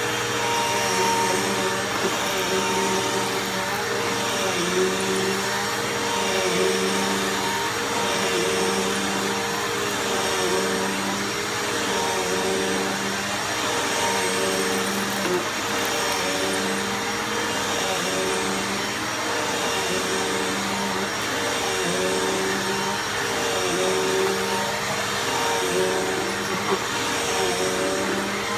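Bissell Powerforce Bagless 6579-3 upright vacuum cleaner running steadily while vacuuming. Its motor hum dips and recovers every couple of seconds as it is pushed and pulled.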